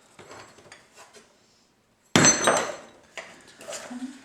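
Old metal hardware from a toolbox being handled and set down: faint clinks, then about two seconds in a sharp metallic clank that rings briefly, followed by a few lighter knocks.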